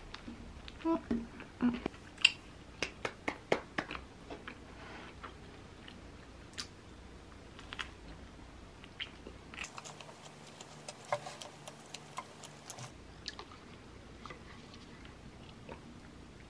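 Close-up chewing and biting of a sweet-pumpkin bagel sandwich: a quick run of sharp crunchy bites and mouth clicks in the first few seconds, then quieter, scattered chewing.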